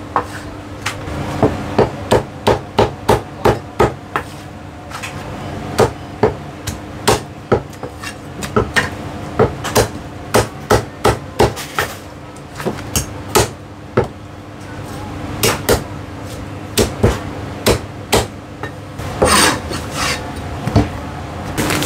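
Heavy Chinese cleaver chopping roast goose on a thick round wooden chopping block: runs of sharp chops, about two to three a second, with short pauses between runs. A steady low hum runs underneath.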